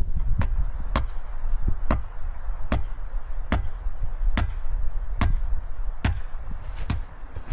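Repeated blows from a hand striking tool at a steady pace: nine sharp strikes a little under a second apart, over a steady low rumble.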